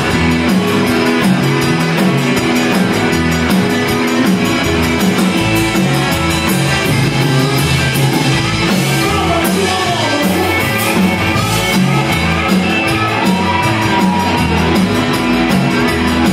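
Live Tex-Mex band playing loudly and steadily: electric guitars, bass, drums, keyboard and button accordion over a pulsing bass line, with some singing.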